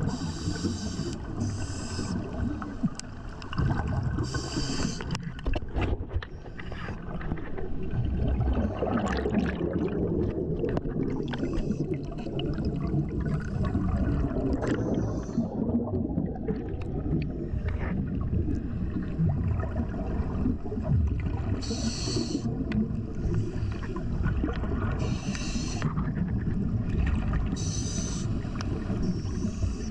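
Underwater sound picked up by a diver's camera: a steady low rumble of water moving against the housing, with short bursts of bubbling hiss every few seconds from scuba divers exhaling through their regulators.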